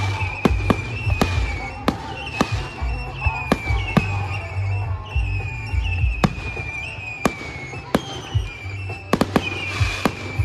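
Fireworks display: aerial shells bursting in a rapid, irregular series of sharp bangs, at times several a second.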